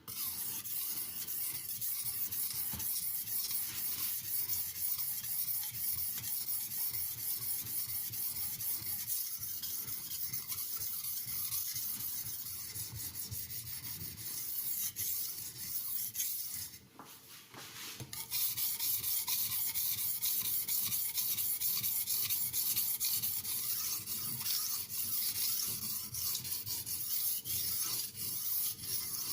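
Steel knife blade being stroked back and forth on a wet Haidu HCJ aluminium oxide 1500-grit (JIS 6000) waterstone with light pressure: a steady scraping hiss, with a brief pause about seventeen seconds in. The stone is abrading the steel.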